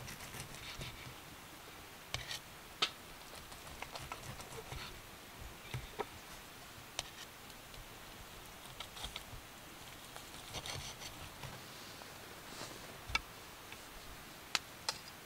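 Irregular sharp clicks and light taps with soft rustling. The loudest clicks come about 3 seconds in and again near the end.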